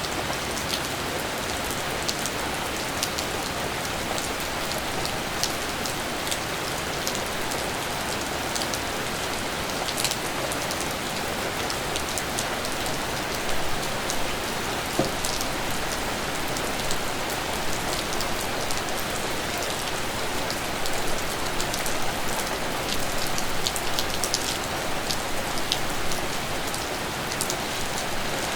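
Steady rain falling, an even hiss with scattered close raindrop ticks, which come more often in the second half.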